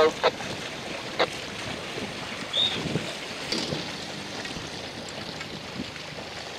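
Wind and choppy sea water splashing around a boat, a steady rushing noise, with a short knock about a second in and a brief high chirp near the middle.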